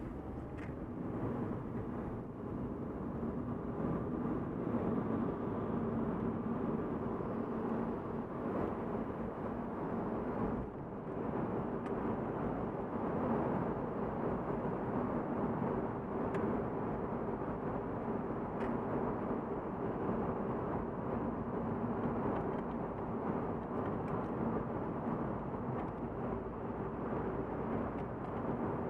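Volvo S40's engine and tyre noise heard from inside the cabin while driving through a road tunnel: a steady hum and road rumble, with a brief dip in level about ten seconds in.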